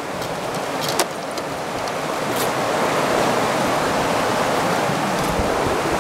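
Steady rushing of flowing creek water, growing louder, with a couple of short clicks from handling a backpack.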